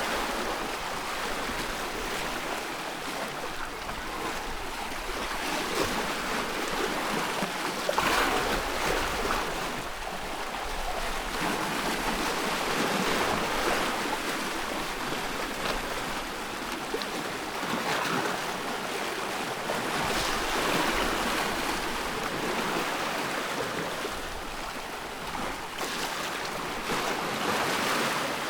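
Wood fire burning with a steady hiss, crackling and popping throughout, with a sharper pop about eight seconds in.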